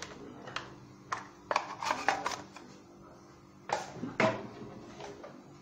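A few separate light knocks and clicks of kitchen utensils being handled, including a wooden spoon laid down on its spoon rest.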